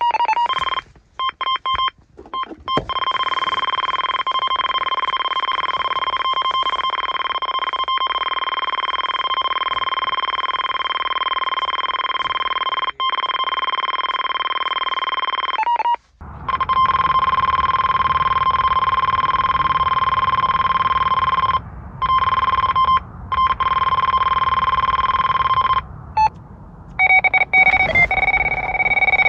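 Electronic carp bite alarm sounding a steady, unbroken tone as a carp takes line on a run. It cuts out briefly a few times, and near the end the tone changes to a different pitch.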